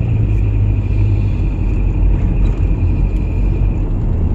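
Vehicle driving, a steady low rumble of engine and road, with a thin high whine that fades out near the end.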